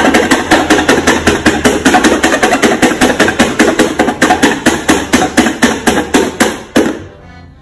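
Rapid tapping of a pen point stabbing holes through a paper cutout onto a hard surface, about six sharp taps a second, stopping near the end.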